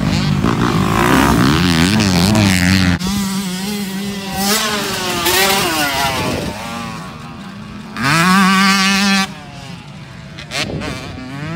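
Dirt bike engines revving on a motocross track, the pitch rising and falling with the throttle. The sound changes abruptly about three seconds in. About eight seconds in, a bike revs up hard and then drops off about a second later.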